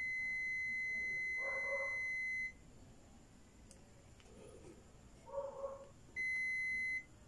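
Multimeter continuity beeper sounding one steady high tone while the probes touch the TV mainboard, the sign of a low-resistance path as the board is checked for shorts. The tone stops about two and a half seconds in and sounds again for under a second near the end.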